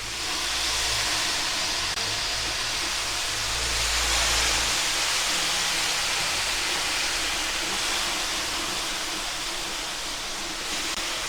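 Red onions with sugar and red wine vinegar sizzling on a hot Pit Boss Ultimate Griddle flat-top as the onion jam starts to cook: a steady hiss that swells a few seconds in and eases a little near the end.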